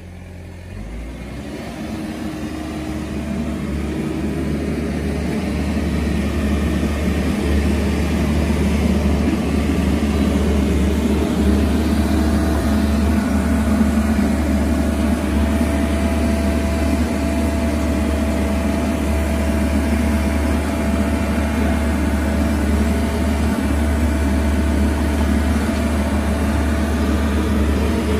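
Hydraulic power equipment running steadily under load, most likely the excavator's diesel engine and pump driving the pipe-bursting pull. Its level builds over the first several seconds, then holds at a steady hum.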